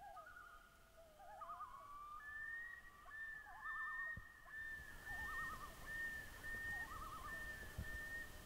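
Common loons calling: repeated quavering tremolo calls over long held higher wailing notes, several overlapping and repeating about every second and a half.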